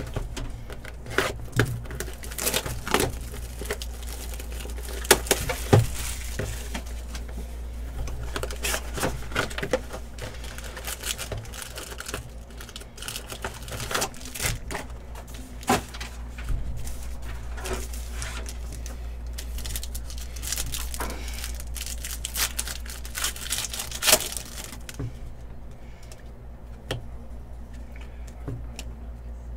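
Trading-card packs being torn open and their foil wrappers crinkled, with cards handled and slid against each other: a long run of irregular crackles, rustles and small clicks over a steady low hum, quieter in the last few seconds.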